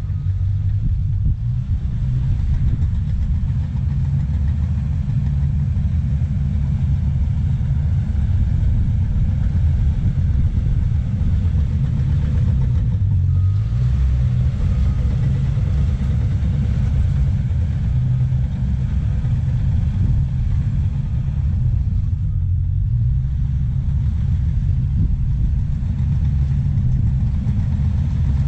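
Cat D5K crawler dozer's diesel engine running steadily as it pushes and spreads topsoil, a deep, loud low rumble.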